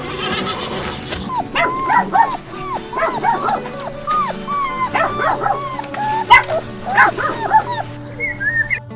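A horse's whinny trails off in the first second, then a dog yaps in many quick, short, high-pitched barks for most of the rest, over steady background music. The barking cuts off near the end.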